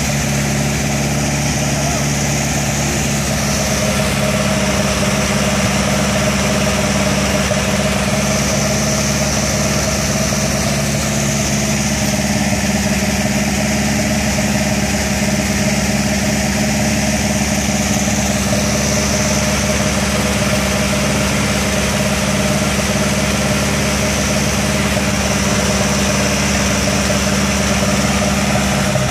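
1962 Allis-Chalmers D10 tractor's four-cylinder engine running steadily at an even speed.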